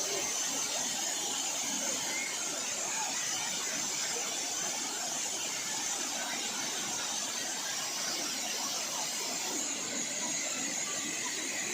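Steady rushing of a waterfall's cascades, an even hiss with a constant high-pitched whine over it.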